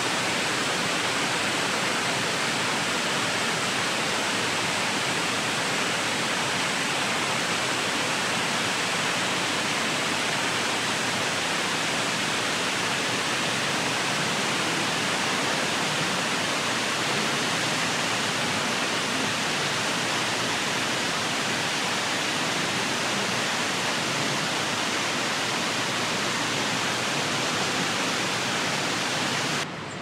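Steady rush of water from a tall waterfall that is mostly frozen into an icefall, with water still falling over its upper tiers: an even hiss with no lulls. It drops abruptly to a quieter level near the end.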